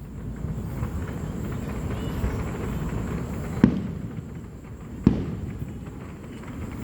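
Two fireworks bangs about a second and a half apart, the first a little past halfway through, each a sharp crack followed by a short low rumble.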